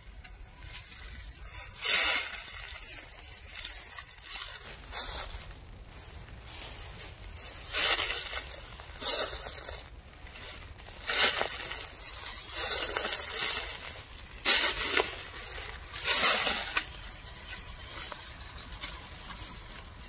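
Dry fallen leaves crunching and rustling in irregular bursts, roughly one every second or two.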